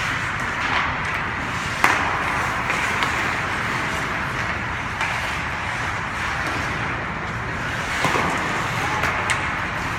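Hockey rink during play: a steady rushing noise with a sharp knock about two seconds in and a few fainter knocks later.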